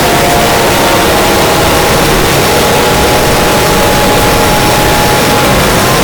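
Loud, harsh static hiss with several faint steady tones buried beneath it, the noise bed of a mock emergency alert broadcast.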